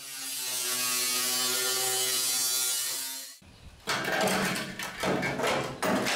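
Angle grinder running at full speed, cutting through the rusty sheet steel of the truck's cab corner and rocker panel, then stopping suddenly after about three seconds. Then a run of metal clanks and rattles as the loose sheet metal is handled.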